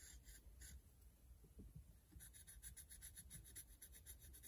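Faint scratching of a marker pen drawing a mark on a metal tube, in rapid short strokes that start about two seconds in.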